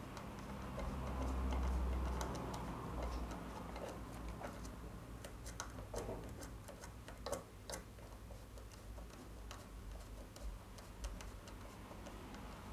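Small precision screwdriver turning a screw into a plastic block, making light irregular clicks and ticks as the screw seats against its nut. There is a low rumble about a second in.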